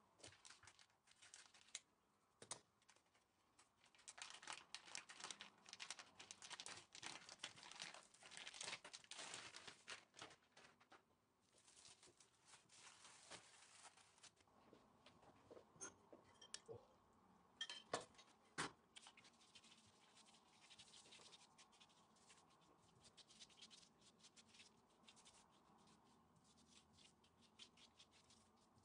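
Faint crinkling and rustling of plastic wrapping and thin phyllo (yufka) sheets as the packet is opened and the dough is unfolded, most of it in the first half. Two sharp clicks about two-thirds of the way through, then only soft handling noise.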